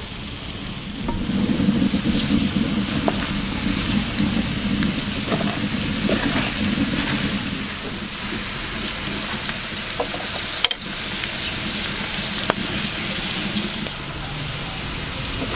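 Eggs and vegetables frying in a pan over a wood fire: a steady sizzle and hiss, with a low rumble underneath in the first half and a few sharp crackles, the loudest about two-thirds through.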